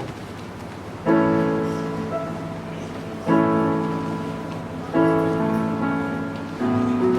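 Four sustained chords played on a keyboard, each struck and left to ring and fade, about two seconds apart.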